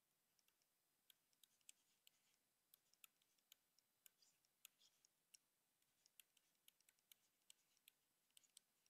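Faint, irregular ticks of a stylus tip tapping and dragging on a tablet screen during handwriting, about two a second, with near silence between them.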